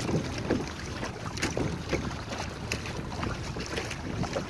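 Water rushing and splashing irregularly along the hull and outrigger float of a Hobie sailing kayak under way under sail, with wind buffeting the microphone.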